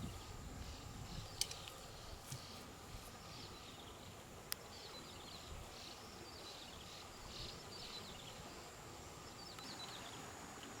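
Faint outdoor ambience: short high chirps from small animals repeat throughout over a low steady hiss, with a couple of sharp clicks from handling gear in the first few seconds.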